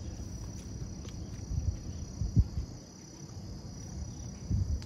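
Crickets chirping in a steady high trill, over a low outdoor rumble, with a soft low bump about halfway through.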